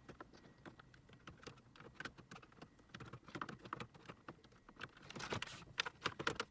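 Small plastic dash parts and fasteners being handled and fitted: light irregular clicking and rattling, a brief scraping rustle about five seconds in, and a few sharper clicks near the end.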